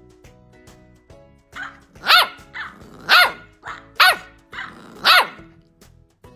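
Corgi puppy barking: four loud, high barks about a second apart, each with a softer yap just before it, over background music.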